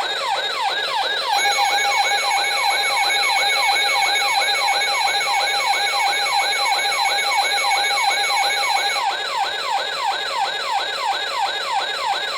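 Weather alert radio's electronic siren alarm: a fast, even train of falling sweeps, about three a second, sounding as a warning comes in. It cuts off suddenly near the end.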